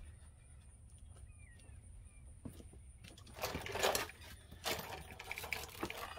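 Quiet for about the first three seconds, then irregular rustling, knocks and light metallic clinks from someone handling tools and parts close to the microphone.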